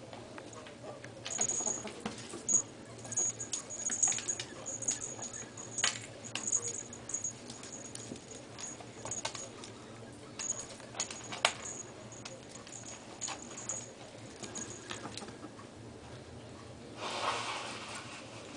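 Two ferrets play-fighting on a bath mat and tile floor: scuffling with many sharp clicks, and a thin high squeak that comes and goes. A short hissing burst comes near the end.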